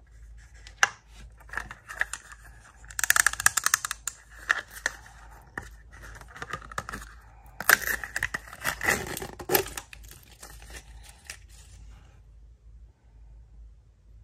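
Small toy packet being torn open and crinkled by hand, in two crackly spells with scattered light clicks and rustles of handling between them.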